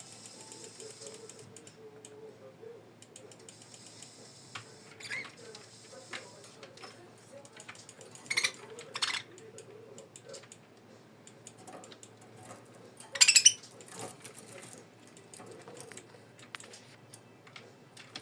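Budgerigar in its cage: a steady run of small clicks and taps, with three short, harsh, high chirps, two close together about halfway through and one a few seconds later.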